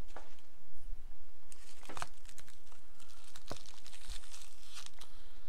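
Foil booster-pack wrappers crinkling as they are handled, with scattered sharp crackles and clicks.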